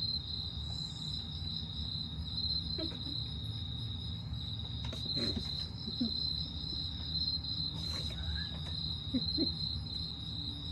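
Crickets trilling in one steady, high-pitched, finely pulsing chorus, over a low background rumble.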